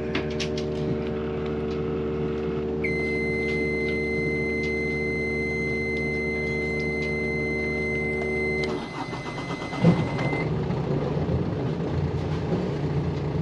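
Yanmar 4JH5E marine diesel starting up: a steady electric hum from the fuel pump priming the fuel lines, joined about three seconds in by a high, steady warning beep from the engine panel. Near nine seconds the hum stops, the starter cranks and the diesel catches and runs evenly, and the warning beep cuts off soon after.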